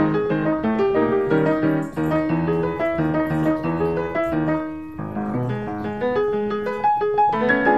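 Background piano music, with notes and chords played throughout and a short dip in loudness about five seconds in.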